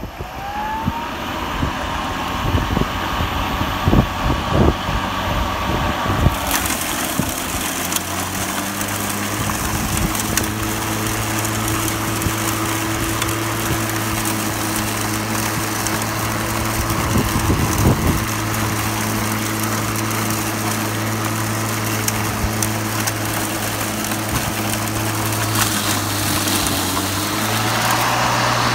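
Greenworks 60-volt battery-powered self-propelled lawn mower: its electric motor spins up with a rising whine, then runs steadily under load while cutting and mulching tall, overgrown grass. About six seconds in, a louder rush of grass being cut joins a steady low hum, with a few short thumps.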